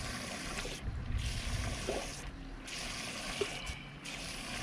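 Water trickling and sloshing, with a steady low rumble underneath.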